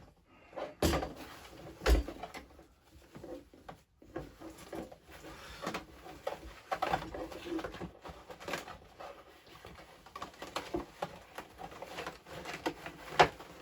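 Handling noise from moving an animatronic Halloween figure and its dress: irregular knocks, clicks and rustling, with sharper knocks about a second in, about two seconds in and near the end.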